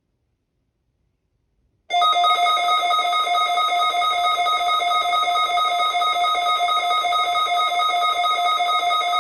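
A loud, steady electronic alert tone starts suddenly about two seconds in and holds with a slight fast flutter, sounding for an Emergency Alert System required weekly test.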